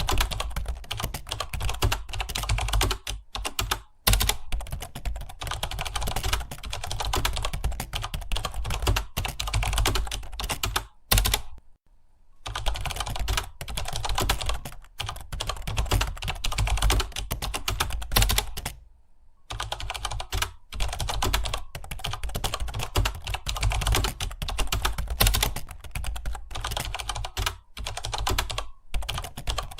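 Fast, continuous typing on a computer keyboard, a dense clatter of key clicks broken by short pauses about four, twelve and nineteen seconds in.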